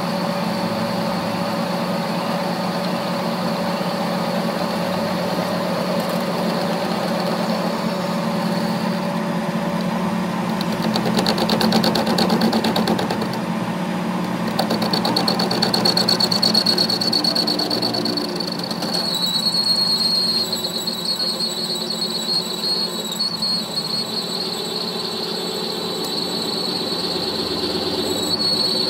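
Metal lathe running steadily while a tool bit turns down a welded steel CV joint axle shaft, with a low machine hum under a thin, high-pitched cutting squeal that grows stronger in the second half.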